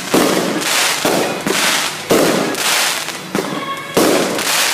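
Aerial fireworks shells bursting: three loud bangs about two seconds apart, each trailing off over a second or so, with smaller pops in between.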